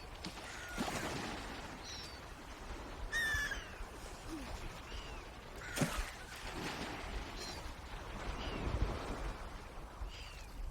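Birds calling with short, downward-sliding calls every second or so, the loudest about three seconds in, over a steady low rush of wind and water. A single sharp knock sounds about six seconds in.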